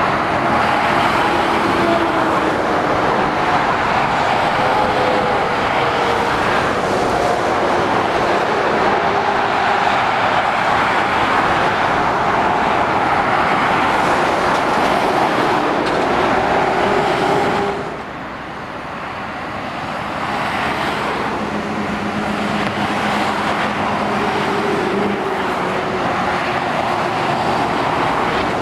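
Motorway traffic passing below: a steady rush of tyres and engines from lorries, vans and cars, with engine hums that shift in pitch as vehicles go by. The rush drops suddenly about two-thirds of the way through, then builds again.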